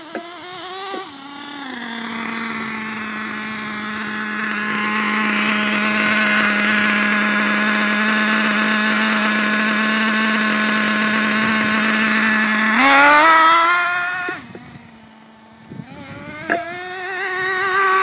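Small two-stroke glow engine of a nitro RC truck running at a steady high-pitched speed for about ten seconds, then revving up, dropping back briefly, and revving again near the end.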